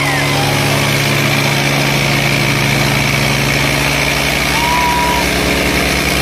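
Diesel tractor engine running steadily under heavy load as it strains to haul a loaded trolley, with an even pulsing beat.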